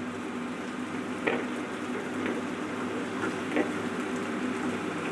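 Green vegetables sizzling in a hot nonstick frying pan just after they go in, with a few brief scrapes of a spatula stirring them over a steady low hum.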